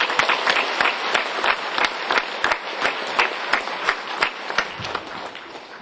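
Audience applauding, a dense spread of many hands clapping that thins and fades out near the end.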